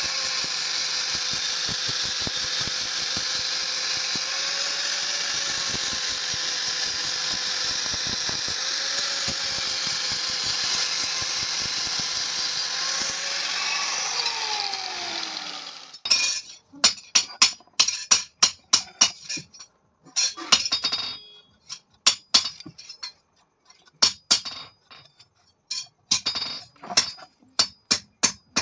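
Angle grinder with an abrasive disc grinding a steel rod, its motor whining steadily; about fourteen seconds in it is switched off and spins down with a falling pitch. After that come many short, sharp metallic clinks in irregular clusters.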